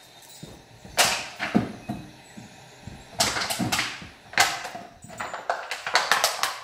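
Empty plastic bottle crunching and crackling in a Kelpie's jaws as she bites and shakes it, in short bursts with a quick run of crunches near the end.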